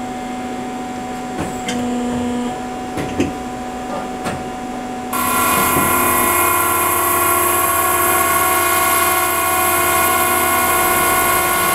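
EMCO Emcoturn 332 MC Plus CNC lathe running with a steady machine hum and a few clicks. About five seconds in, a louder steady whine with several high tones comes on and holds.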